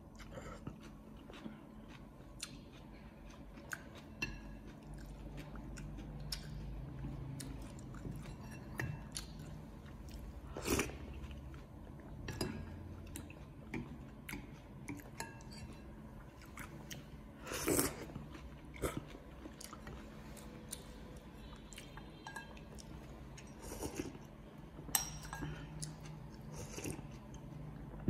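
A person eating soup at close range: chewing and sipping from a spoon, with several louder sips and short clicks of the metal spoon and chopsticks against the ceramic bowl.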